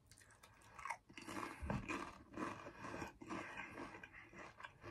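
Faint crunching and chewing of a multigrain Pringles crisp, starting about a second in as irregular crackly crunches.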